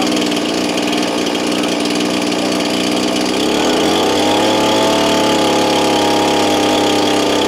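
Stihl MS361 two-stroke chainsaw running while driving a homemade chainsaw dyno. Engine speed rises about three seconds in, holds steady at the higher pitch, then falls back near the end.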